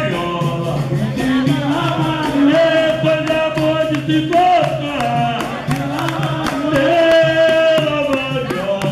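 Capoeira roda music: men singing over berimbaus and an atabaque drum, with a steady rhythmic beat of strikes.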